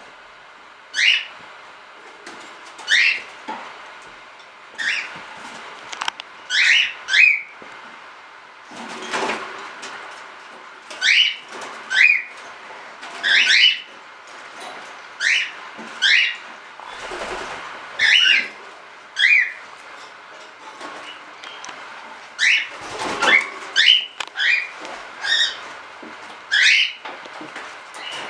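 Cockatiels giving short, shrill contact calls, repeated about every one to two seconds, with bursts of flapping wings about nine seconds in and again around twenty-three seconds.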